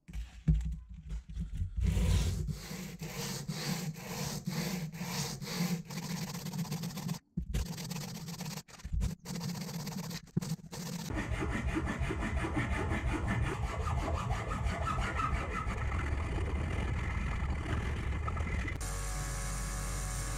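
Aluminium part rubbed back and forth on a flat sheet of sandpaper, hand-sanding in even strokes about twice a second, then in quicker, shorter strokes. Near the end a belt sander's motor starts and runs steadily.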